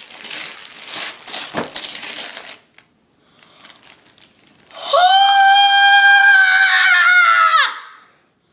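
Wrapping paper being torn and crinkled open, then a girl's long, high-pitched scream of excited surprise at the gift, held steady and dropping in pitch as it ends.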